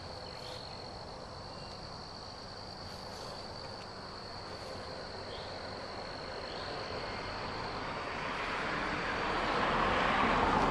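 Insects trilling in one steady high tone, which fades out a couple of seconds before the end. Meanwhile a vehicle approaches, its noise growing louder over the last few seconds.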